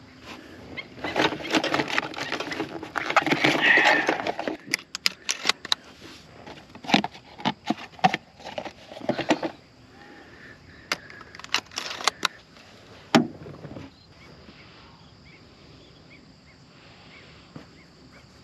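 Shotgun being reloaded after a volley: loud rustling of clothing and gear for a few seconds, then a run of sharp metallic clicks as shells are pushed into the gun. Faint steady insect chirring fills the background once the clicking stops.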